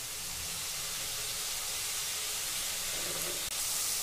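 Chopped red onion frying in hot oil in a non-stick kadhai, a steady sizzling hiss.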